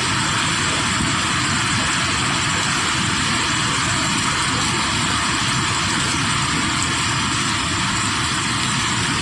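Steady rush of muddy floodwater pouring down a swollen river in spate, with no let-up.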